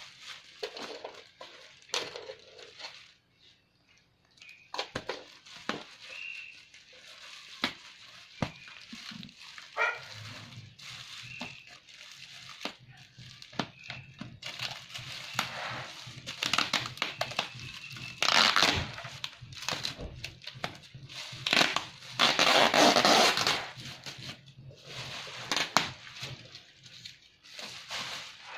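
Thick black plastic parcel wrapping crinkling and rustling as it is gripped and pulled open by hand. The crinkling gets louder in two long stretches in the second half.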